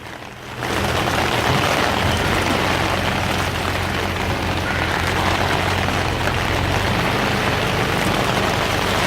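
Heavy rain falling on a blue plastic tarp canopy, a steady hiss that comes in about half a second in, with the swamp buggy's engine running steadily underneath as a low hum.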